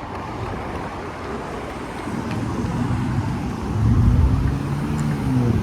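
A motor's engine passing close by: a low hum that comes in about two seconds in and is loudest around four seconds, over steady city traffic noise.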